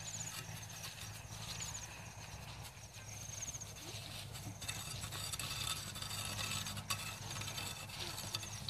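Footsteps walking along a dirt path through grass, in an uneven rhythm. A high, short chirp repeats about once a second.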